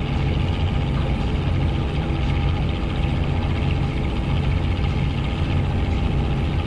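Fishing boat's engine running steadily at idle, a constant low drone.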